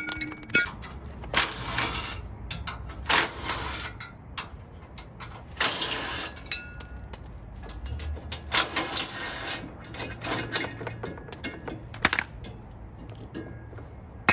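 Hand tools working on the bolts of a 4Runner's front support brace: a ratchet wrench run in about five short bursts of clicking, with small metallic knocks between.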